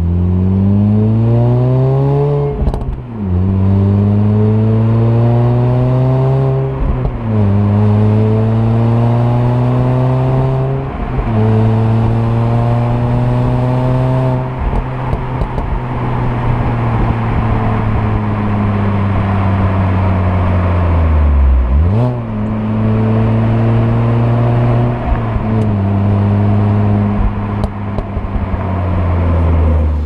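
Exhaust note of a 2005 Mini Cooper S (R53) supercharged 1.6-litre four-cylinder, heard close to its centre dual tailpipes while driving. The revs climb and drop through three upshifts in the first eleven seconds, then settle into steadier running over road and wind noise. There is a brief dip and recovery a little past twenty seconds.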